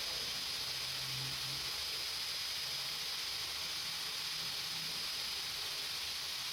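Steady background hiss with a faint, constant high-pitched whine and a low hum underneath; nothing starts or stops.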